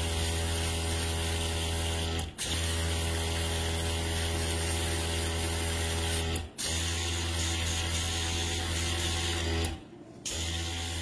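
Small airbrush compressor running with a steady hum while the airbrush sprays paint onto a nail tip. The hum drops out for a split second twice and for about half a second near the end.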